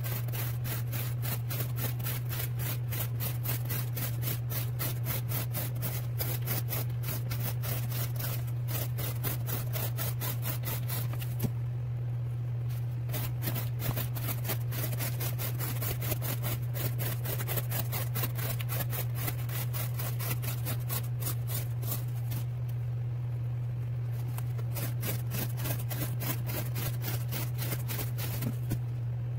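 An M390-steel knife blade slicing strips off corrugated cardboard in quick repeated strokes, several a second, in runs with short pauses as the sheet is repositioned: cardboard cutting for an edge-retention test. A steady low hum runs underneath.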